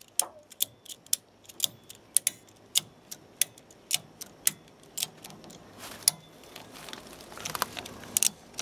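Ratchet strap's pawl clicking as its handle is cranked to tighten the strap, about two clicks a second.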